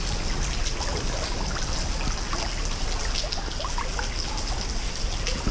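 Stream water running steadily around the wading angler, with trickling and small splashes over a low rumble of the current.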